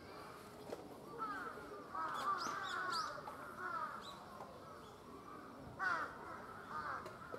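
Bird calls repeating in short runs of falling notes, loudest about two to three seconds in and again near six seconds.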